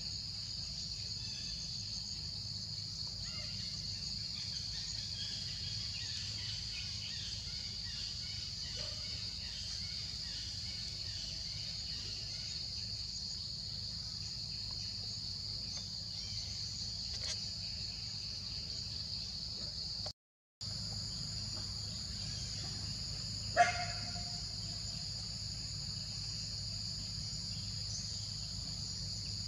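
Steady, high insect chorus of crickets or cicadas, with one short sharp sound about two-thirds of the way through as the loudest moment. The sound cuts out completely for a moment about 20 seconds in.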